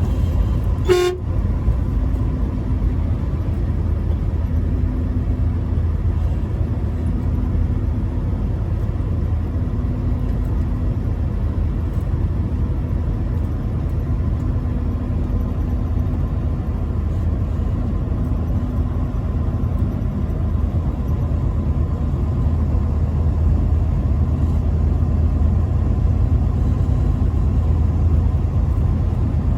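A truck horn sounds once, briefly, about a second in. After it comes the steady low rumble of the truck driving, engine and road noise.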